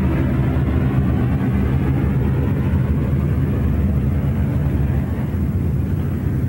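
A steady, deep droning rumble with a low hum, like a large engine or aircraft, thinning out in its upper range near the end.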